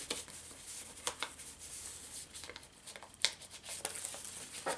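Paper pages and tags of a handmade junk journal being handled and turned: faint rustling with a handful of short, sharp paper ticks and taps spread through.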